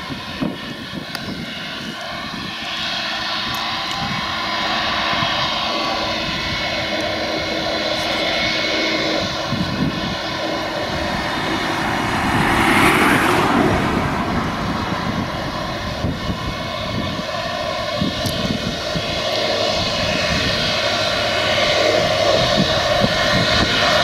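Tractor running under load while a front and side mower combination cuts grass: a steady engine drone mixed with the whir of the spinning mower, slowly growing louder as it approaches, with a short louder rush of noise about halfway through.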